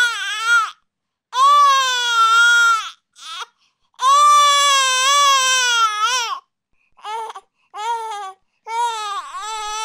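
An infant crying: a few long cries of one to two seconds each, then shorter cries coming more quickly near the end.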